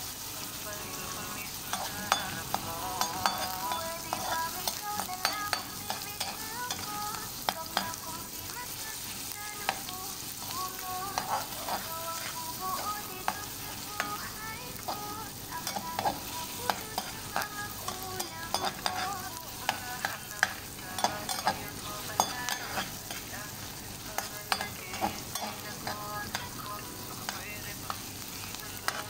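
Diced onions sizzling in hot oil in a metal pan while a metal slotted spoon stirs them, scraping and clicking against the pan many times from about two seconds in. The onions are being sautéed until they brown.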